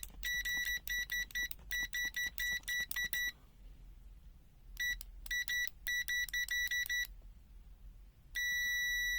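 Multimeter continuity beeper sounding a high-pitched tone in rapid choppy stutters, then stopping twice, as the test probes touch and break contact; near the end it settles into one steady unbroken beep as contact holds.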